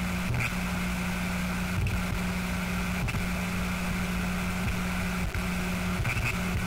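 A steady low drone, a hum near a single pitch over a rumble with hiss above it, cut by brief dropouts every second or two.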